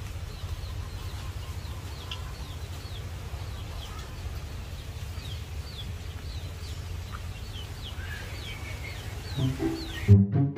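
Bird calls: a long string of short, falling high chirps, two or three a second, over a steady low rumble. Music comes in near the end.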